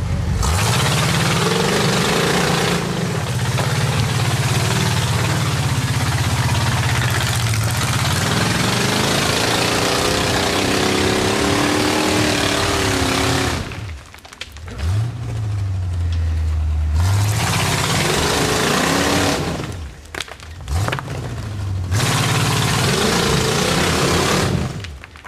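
Rock-crawler buggy's engine revving hard and unevenly as it climbs over boulders, its pitch rising and falling. The engine lets off sharply about 14 seconds in, again about 20 seconds in and near the end, then comes back on.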